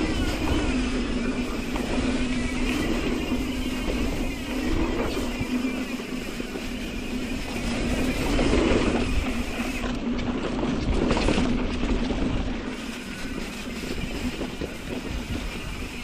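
Mountain bike riding fast down a dirt trail: tyre roar and wind rushing over the microphone, with the bike rattling over bumps and a steady buzz underneath.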